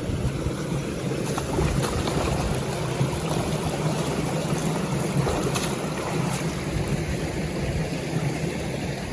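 Steady engine rumble of a rice combine harvester at work, with wind buffeting the microphone.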